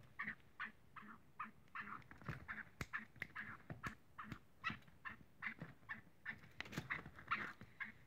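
Black francolin giving short calls over and over, about three a second, with a few sharp clicks among them.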